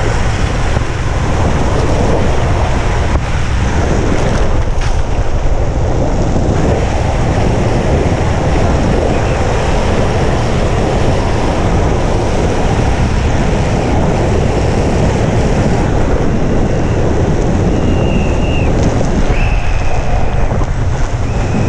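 Heavy wind rush over the microphone of a camera moving fast downhill, mixed with the steady rumble of longboard wheels rolling on a concrete road. A few short high squeals come near the end.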